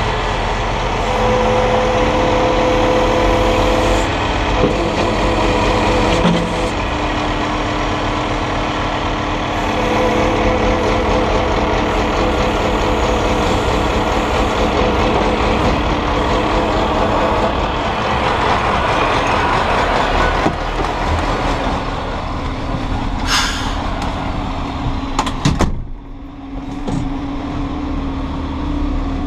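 A 32-ton grab lorry's diesel engine running, with a steady whine that changes pitch a few times while the grab crane is worked over the sheeted load. Near the end comes a short burst of air hiss, then a single knock.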